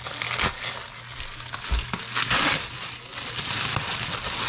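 Foil and plastic wrapping on a ham crinkling and rustling as it is handled and lifted out of a plastic bag, densest about two seconds in.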